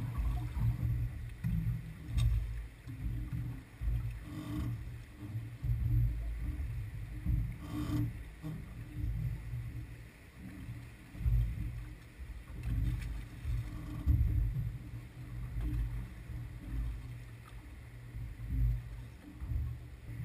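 Wind and water noise aboard a small boat on choppy sea: an uneven low rumble that rises and falls, with a couple of brief knocks.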